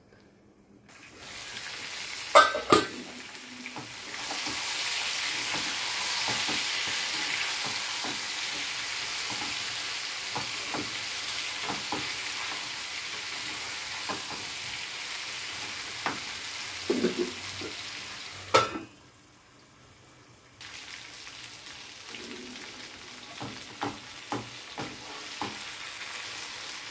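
Oil sizzling as stuffed small brinjals and potato pieces fry in a kadhai, with occasional metal clanks and clicks of a spoon or lid against the pan. After a loud clank about two-thirds of the way through, the sizzle stops for a moment, then comes back more softly with frequent small stirring clicks.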